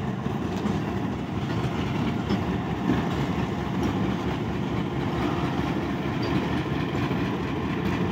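Diesel engine of a Pakistan Railways GMCU-15 shunting locomotive running steadily as it moves past, a continuous rumble with a fast, even low throb.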